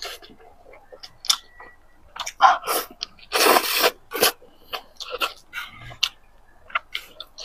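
Close-miked eating sounds: a person chewing food, with irregular wet mouth clicks and several louder noisy bursts, the biggest about halfway through.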